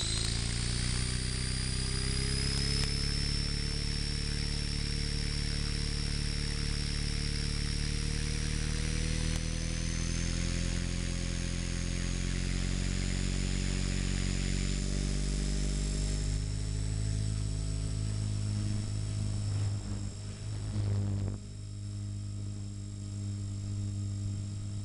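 Electric 450-size RC helicopter's motor and rotors running: a high whine over a steady rotor hum, creeping up in pitch as the head spools up while it sits on the ground. About 20 seconds in the sound wavers and shifts to a deeper hum with a fainter whine as it lifts off and flies.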